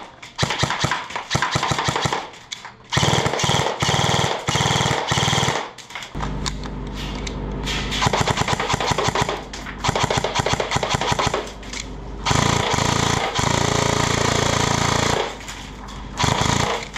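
VFC VR16 Avalon airsoft electric rifle firing rapid trigger pulls on semi-auto, first in stock form, then after about six seconds fully upgraded (13:1 high-speed gears, 30K motor, Gate Titan mosfet, speed trigger) with faster, tighter clusters of shots, and full-auto bursts near the end. A steady low hum runs under the shots from about six seconds in.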